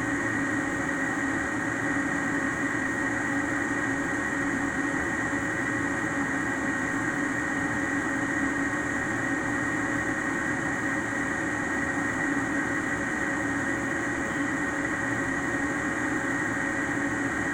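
Newly replaced Ametek 117104-01 furnace draft inducer fan running smoothly: a steady even hum with a thin high whine held throughout, free of the noise of the old unit.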